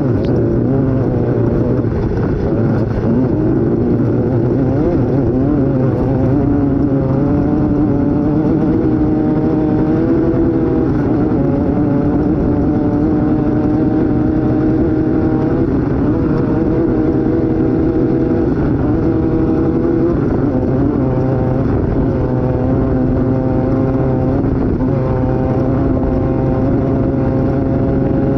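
Off-road race vehicle's engine heard from onboard, running hard at a pitch that holds for several seconds at a time and breaks off briefly every few seconds, over a constant noise underneath.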